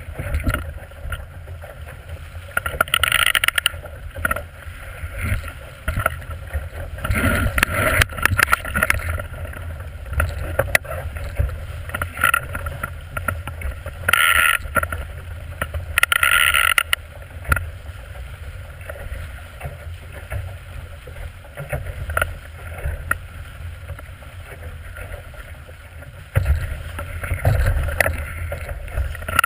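Water rushing and splashing along the hull of a small plywood sailboat driving fast through chop. Louder bursts come every few seconds as the bow slams into waves and throws spray, all over a steady low rumble.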